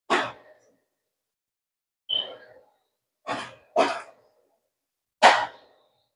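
A person coughing: five short, separate coughs, irregularly spaced about one to two seconds apart.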